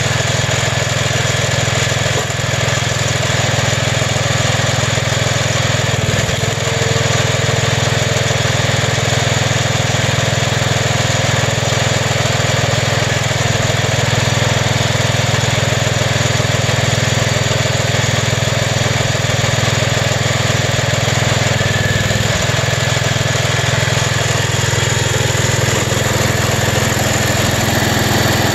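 Small air-cooled single-cylinder engine of a hydraulic log splitter running steadily, driving the hydraulic pump while wood is split. Its note wavers briefly twice.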